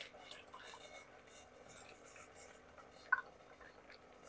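Faint clinks and scrapes of a spoon against a bowl as sour yogurt is spooned out, with one sharper clink about three seconds in.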